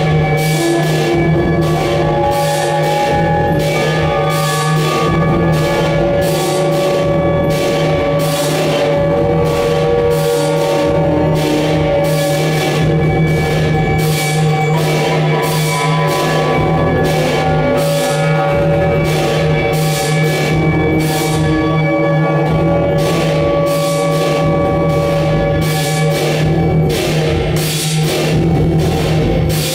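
Live electronic music played on a tabletop rig of electronics: a steady low drone under held tones, with sharp percussive clicks about twice a second.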